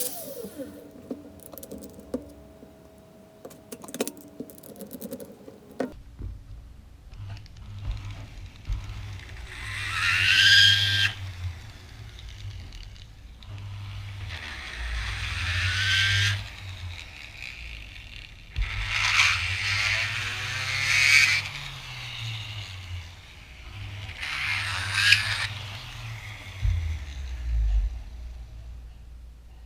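Vevor 780 W flex shaft grinder whining down at the start, followed by a few light clicks. After about six seconds it runs again at low, foot-pedal-varied speed while the bit scrapes against wood in loud bursts every four to five seconds.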